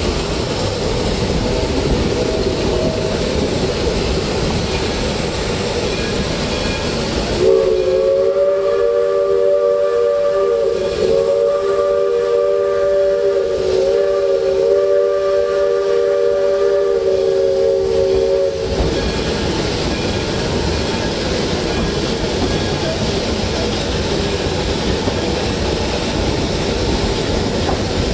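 Narrow-gauge train running, with the chime steam whistle of 2-truck Shay locomotive #1 "Dixiana" blown in one long blast of about eleven seconds, several notes sounding together as a chord, wavering briefly twice, starting about seven seconds in and cutting off sharply.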